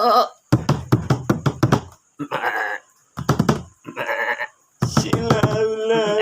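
Three short bleats with a wavering pitch, one near the start, one a little past two seconds and one about four seconds in, alternating with a rhythmic knocking beat. Music with steady held tones comes in near the end.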